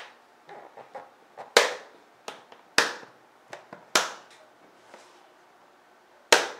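Hands pressing and patting a Harley-Davidson V-Rod's airbox cover down onto its mounts: four loud, sharp knocks, the first three about a second apart and the last a couple of seconds later, with lighter taps between them.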